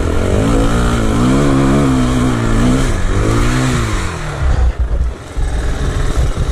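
KTM enduro dirt bike's engine revving, its pitch rising and falling repeatedly under the throttle while riding over loose, rocky ground. About four seconds in the engine note turns choppier, with a brief drop in level about five seconds in.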